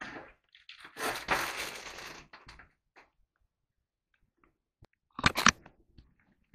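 Crinkling and rustling as a disposable respirator mask is handled and put on, with a short, louder crackle about five seconds in.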